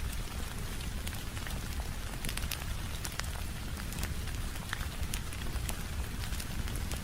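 Steady rain mixed with a crackling wood fire: an even hiss over a low rumble, with sharp pops and crackles scattered through it.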